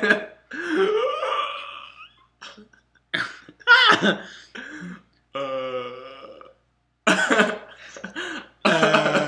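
Young men making goofy wordless vocal noises: a string of short bursts and a longer drawn-out low sound a little past halfway.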